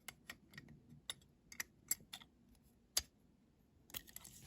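Small, sharp, irregular clicks and taps of a diecast toy car's parts being handled as its metal base plate is fitted back onto the body, the loudest click about three seconds in, then a soft rustle.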